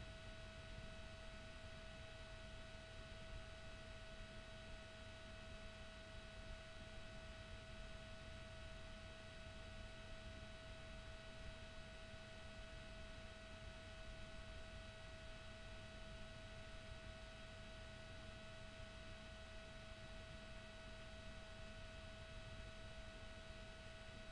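Faint steady whine: one constant tone with several fainter higher tones over low background hiss, unchanging throughout.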